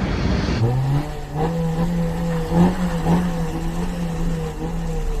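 A motor vehicle's engine running: its pitch rises briefly about half a second in, then holds steady with a slight wobble. Before that there is a rushing hiss.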